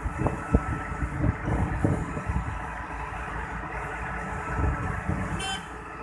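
Diesel engines of an asphalt paver and a dump truck running while the raised tipper body unloads asphalt into the paver's hopper, with several low thumps in the first two seconds. A short high beep sounds about five and a half seconds in.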